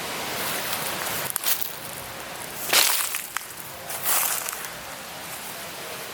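Continuous rustling noise with three louder brushing sweeps, the loudest in the middle.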